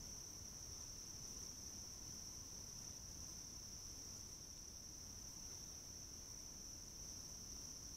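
Faint insect chorus: a steady, unbroken high-pitched trill, typical of crickets in late summer.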